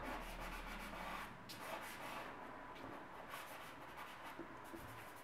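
A stick of white chalk scratching across grey paper in quick repeated strokes.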